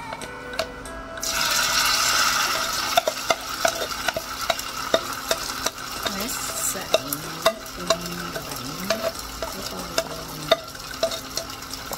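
Shredded potato batter hitting hot oil in a nonstick frying pan: sizzling breaks out about a second in, loudest just after the pour, then settles to a steady lower sizzle. Sharp clicks of a spoon against the bowl and pan run through it as the batter is scraped out and spread.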